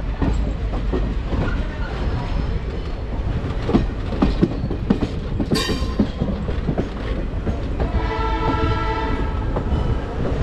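Passenger train running, its wheels clacking over rail joints. A brief high screech comes a little past halfway, and about eight seconds in a train horn sounds for about a second and a half.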